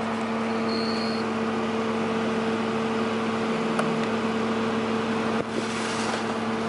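Vehicle engine running at a steady speed, a constant hum with no change in pitch.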